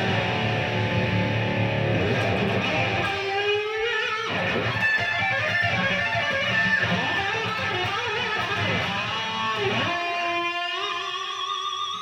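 Electric guitar playing a rock part: full chords with notes bent upward in pitch, and near the end a long held note with vibrato.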